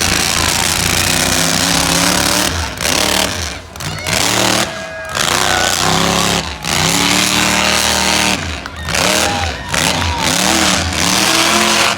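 Monster truck engine running hard, its revs rising and falling over and over, with short drops as the throttle is lifted every second or two.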